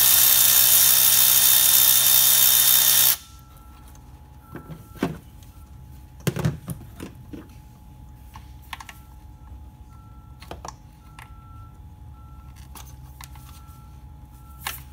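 Cordless electric ratchet running steadily on a bolt for about three seconds, then stopping abruptly. After that come light clicks and knocks of plastic connector plugs being unclipped and parts handled.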